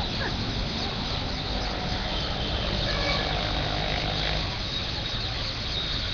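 A large flock of parrots calling continuously, many overlapping shrill calls, over the steady rumble of heavy road traffic.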